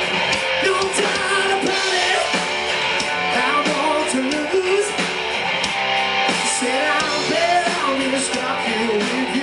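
Live rock band playing a song: electric guitars and drums, with a singer's voice over them.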